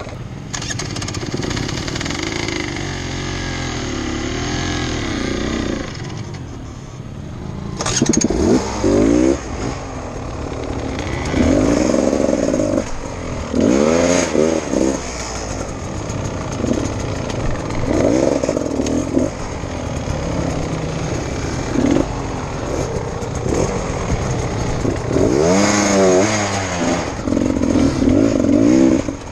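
Dirt bike engine running, then revved in repeated short throttle bursts every couple of seconds from about eight seconds in, the pitch climbing and dropping with each blip as the bike is worked over boulders on a steep rocky climb.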